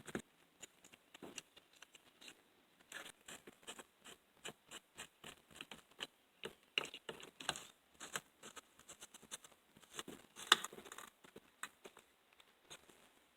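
Faint, irregular clicks and small metal scrapes from hand tools tightening the carburetor mounting nuts on a two-stroke weed eater engine, pulling them tight so the gaskets seal.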